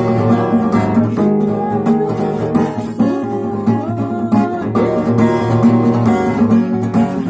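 Acoustic guitar strummed in a rhythmic pattern, practising the percussive muted-strike ("knock") strumming technique. Some notes slide in pitch about four seconds in.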